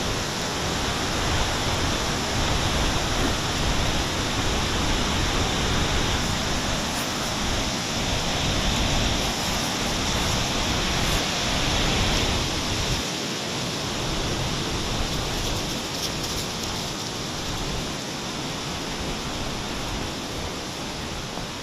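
Waterfall water rushing steadily, the noise of Fukiware Falls; it eases a little about halfway through.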